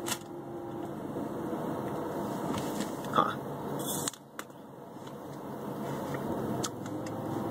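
A person biting and chewing a crisp apple slice, with quiet crunching and a few sharp clicks, the loudest about three to four seconds in, over a steady hum inside a car cabin.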